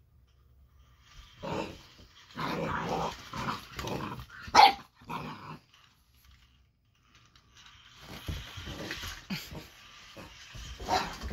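Eight-week-old boxer puppy growling in several bursts, with one loud, sharp bark a little under halfway through, then a short pause before more growling.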